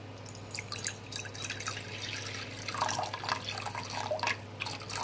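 Water poured from a plastic gallon jug into a crock pot's empty ceramic insert, splashing, and fuller from about three seconds in.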